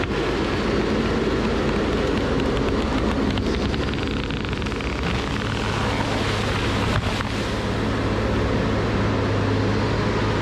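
Tracked feller buncher's engine and hydraulics running hard as its disc-saw felling head cuts through a standing tree and carries it off. A steady low hum grows stronger about four seconds in, with a single brief knock a few seconds later.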